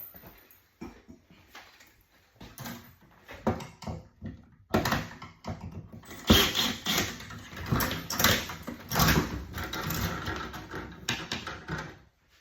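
Irregular knocking, clicking and clattering of hands and tools working on the wiring of a residential electrical panel, sparse at first and then busy and louder from about five seconds in.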